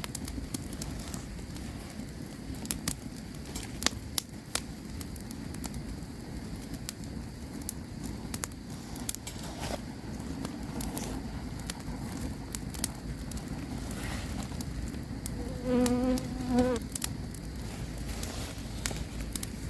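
Campfire crackling, with scattered sharp pops over a steady low rumble. About three-quarters of the way through, a brief buzz lasting about a second.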